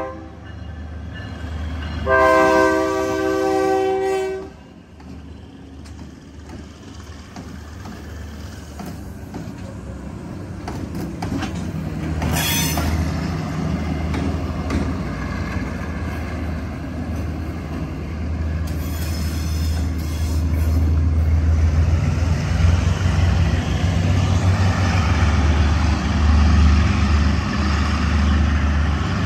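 Diesel locomotive air horn sounds one loud chord about two seconds in, lasting about two seconds, as a lashup of four diesel road-switcher locomotives (MK1500D units with Caterpillar 3512 engines and an EMD SW1500) passes a grade crossing. After the horn the engines' low rumble and wheel clicking over the rail joints carry on, getting louder in the second half.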